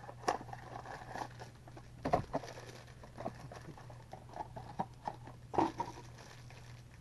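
A small cardboard blind box being opened by hand and the foil bag inside crinkled: scattered crackles and rustles, loudest about two seconds in and again near six seconds.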